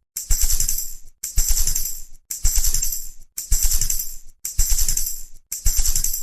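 Tambourine shaken in repeated bursts of jingling, about one a second, each burst opening with a low thump.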